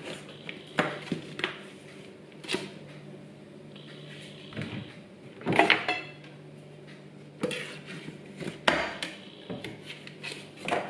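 Scattered clicks and light metallic knocks from an old aluminium springform pan being handled as its ring is loosened from the cake, with a knife worked around the inside of the ring. The loudest knocks come about halfway through.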